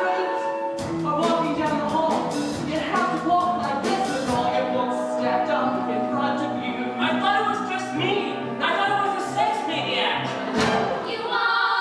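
Cast singing a musical-theatre number with band accompaniment, over a steady pulsing bass line.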